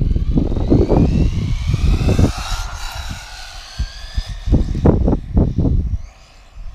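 High-pitched whine of the WLtoys A959-B 1:18 RC car's electric motor, climbing in pitch as the car accelerates and fading out after about three seconds. Heavy low gusts buffet the microphone throughout.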